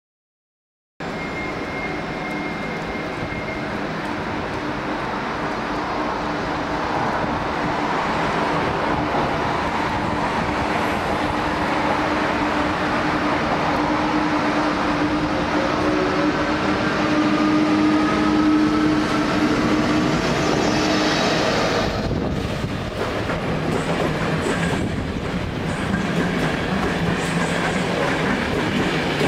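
Škoda-built ČD class 163 electric locomotive accelerating a passenger train past: a steady running hum with a whine that rises in pitch as it gathers speed. About twenty-two seconds in, the locomotive has gone by and the coaches roll past with wheels clattering on the rails.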